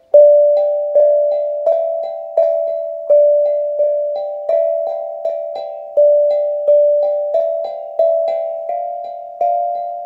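Background music: a slow melody of single struck or plucked notes, each fading away, about one note every 0.7 seconds.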